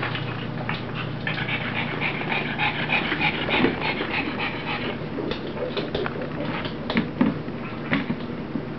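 Pug puppy and an adult dog play-fighting: panting and small whimpers, with scattered quick clicks of claws on a hardwood floor.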